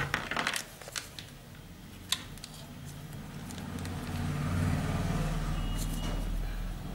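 A few small clicks and rustles as analog multimeter test leads are handled and held to a clothes iron's cord pins. Then a low rumble swells up from about three seconds in and fades near the end.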